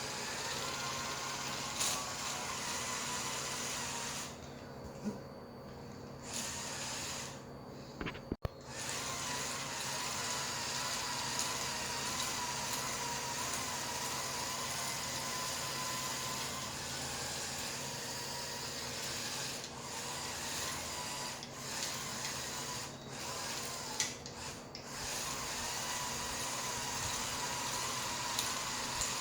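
Two Lego Technic M electric motors whirring as they drive the tank's plastic gear train and tracks, with a wavering whine. The whir drops away briefly a few times, most clearly twice in the first several seconds, as the drive stops and starts.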